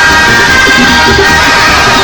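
Loud Latin dance music with drums, played over a sonidero sound system.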